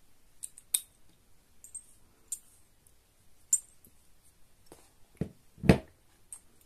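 Light clicks and taps of a glass perfume bottle and its metal crown cap being handled, followed about five seconds in by two duller knocks as the bottle and its box are set down on the table, the second knock the loudest.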